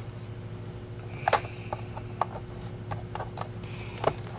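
Brushroll of an Oreck XL21 upright vacuum being handled and seated into its plastic base: a run of light clicks and knocks with some rubbing, the sharpest knock about a second in. A steady low hum runs underneath.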